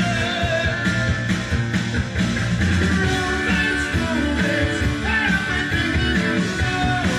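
Rock music with singing and guitar, played from a vinyl record on a Pioneer PL-518 direct-drive turntable.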